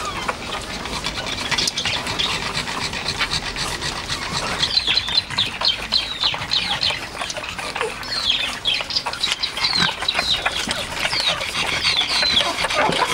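Many short, high-pitched chirping calls that fall in pitch, several a second, starting about four seconds in, over a steady background hiss.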